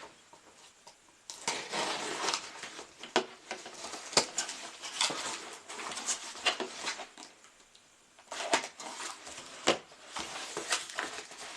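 Packaging being handled and opened by hand: stretches of rustling and crinkling with scattered clicks and light knocks, starting about a second in and pausing briefly about two-thirds of the way through.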